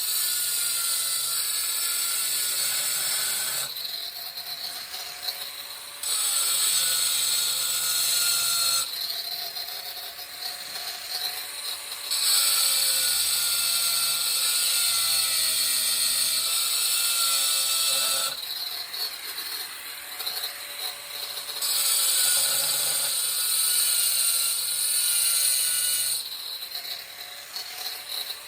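Angle grinder cutting a hole in tile with the tip of its blade at an angle, in repeated passes: louder stretches of hissing grinding while the blade bites, alternating every few seconds with quieter stretches where the motor's whine is heard as the blade eases off the tile.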